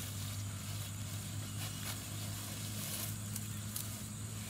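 A steady low mechanical hum, like a distant engine running, with a faint high hiss. A few light crinkles and clicks from a plastic bag and dry straw being handled come in the middle.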